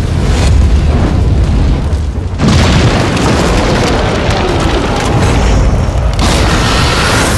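Anime battle sound effects for a huge fire-and-undead attack: a heavy, continuous explosive rumble that surges suddenly louder about two and a half seconds in. Music plays underneath.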